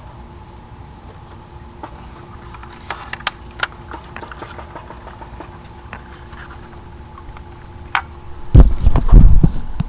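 Scattered light clicks of plastic parts being handled, then a loud low rumble on the microphone about a second before the end.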